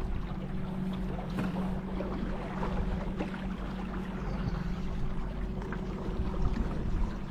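A boat's motor humming steadily at an even pitch, with water and wind noise around it.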